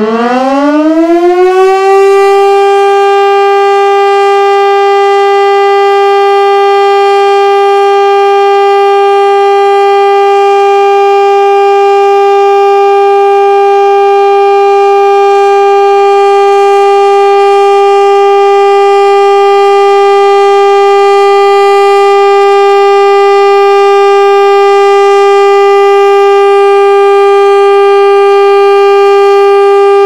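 Federal Signal STL-10 outdoor warning siren finishing its wind-up, the pitch rising and levelling off about two seconds in, then holding a loud, steady single tone: the full alert signal of a tornado siren test.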